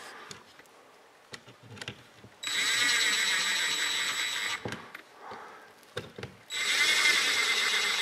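Cordless drill-driver with a Torx T20 bit running in two bursts of about two seconds each, driving screws into the plastic motor housing of an angle grinder. There are small clicks of handling in the gaps between the bursts.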